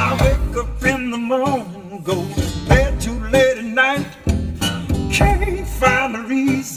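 A slow song with a singer's voice and guitar, played back through a car audio system's Focal K2 Power 165KR component speakers.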